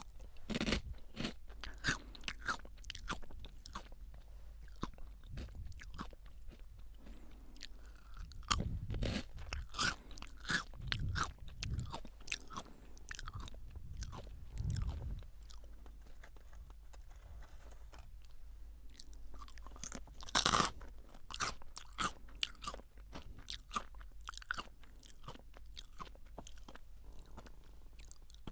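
Close-miked chewing of Jagabee lightly salted fried potato sticks: crisp, irregular crunches throughout, with deeper chewing between about eight and fifteen seconds in and one loud crunch about two-thirds of the way through.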